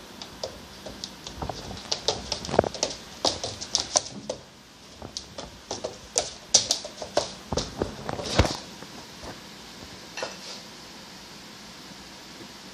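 German Shepherd puppy's claws clicking and paws scrabbling on a hardwood floor as she spins after her tail. It is a fast, irregular run of sharp clicks with a few heavier knocks, stopping about eight and a half seconds in, with one more click a little later.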